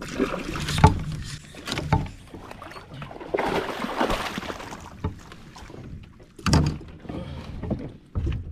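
Splashing and thrashing of a hooked bass being hauled through lily pads and surface slop to a kayak. It comes in several loud, irregular bursts, the loudest about two-thirds of the way through.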